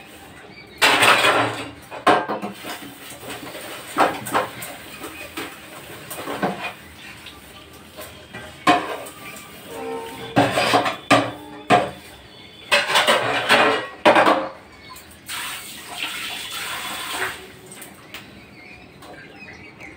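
Stainless steel bowls and plates clanking and scraping against each other and the steel sink as they are washed by hand, in irregular clattering bursts.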